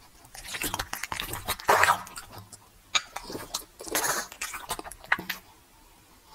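American Bully dog snuffling and chewing at a treat offered by hand: irregular sharp clicks mixed with short noisy breaths, growing quieter near the end.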